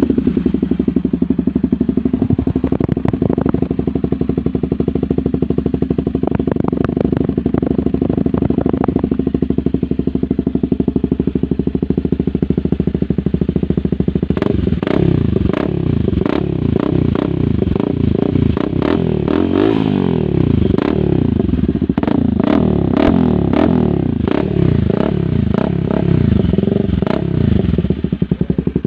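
Honda CBR250 motorcycle engine through an SC Project aftermarket exhaust, idling steadily for about fourteen seconds, then revved in repeated throttle blips, its pitch rising and falling. Sharp pops and clicks sound between the revs.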